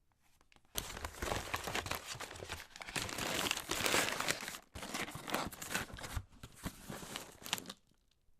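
Parcel packaging being handled while a box is opened: dense crinkling and rustling with sharp crackles and some tearing. It starts about a second in, breaks off briefly in the middle, and stops just before the end.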